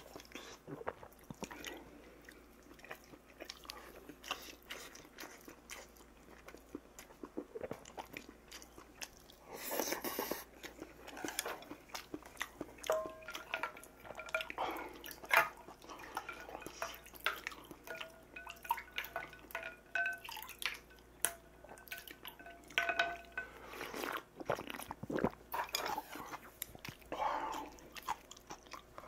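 Close-up eating sounds: chewing and slurping with many small clicks of spoon and chopsticks against stainless steel bowls. From about halfway in, a small steel bowl rings faintly after several knocks as cold soup is ladled into it and sipped.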